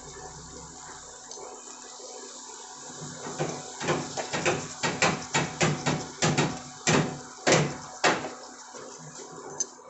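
Fish roe, liver and offal frying in hot oil in a frying pan: a steady sizzle, then from about three seconds in a run of sharp pops and spits from the oil, roughly two a second, the biggest in the second half.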